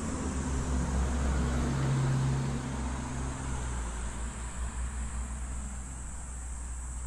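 A car passing on the street beside the pavement: its engine hum and tyre noise grow louder about two seconds in, then fade away by about four seconds, over a steady low rumble.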